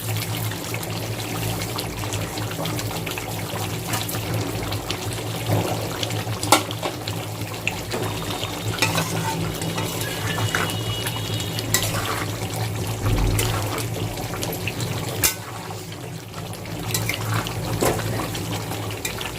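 Chicken korma gravy bubbling and sizzling in a cooking pan as it is stirred, with a couple of sharp knocks of the spoon against the pan. A steady low hum runs underneath.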